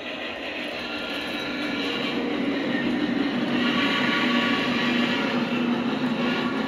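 Lionel Visionline O-gauge model steam locomotive running on the layout track with a steady running noise, growing louder over the first few seconds as it comes closer.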